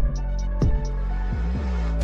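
Background music with a steady low bass, drum hits and held synthesizer tones.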